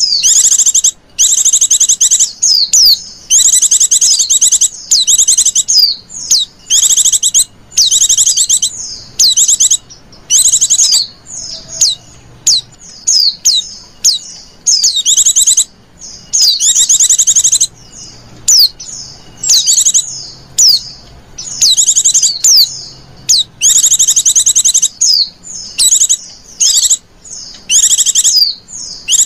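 White-eye (pleci) calling: rapid high-pitched trills in short bursts, over and over, with quick sweeping chirps between them. This is the call played to lure wild white-eyes.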